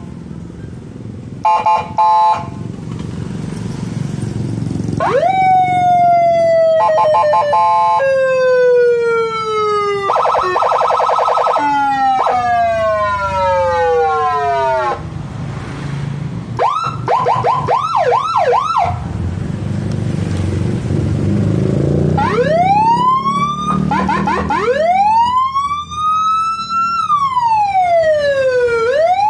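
Nine-tone police-escort electronic siren on a Yamaha NMAX scooter, played through a TOA speaker and stepped through its tones. It starts with short beeps, then long falling sweeps with a fast warble in the middle, then a run of rapid short whoops, and ends with slow rising and falling wails.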